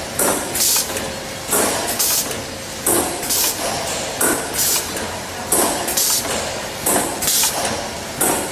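Soontrue ZL300 vertical form-fill-seal powder packing machine running, its pneumatic cylinders letting out short hisses of air in pairs, a pair roughly every one and a half seconds, over a steady mechanical running noise.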